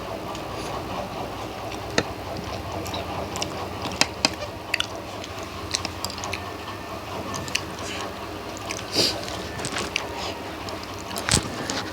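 A person eating fish curry and rice: wet chewing and lip-smacking with scattered sharp clicks, over a steady background noise.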